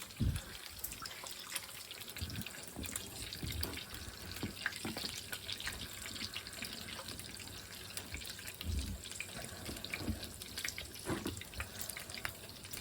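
Food cooking on the stove: a steady watery hiss full of small crackles and pops, with a few low thumps.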